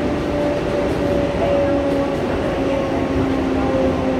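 R142A subway train standing at a station, giving a steady noise with a few faint whining tones that shift slightly in pitch.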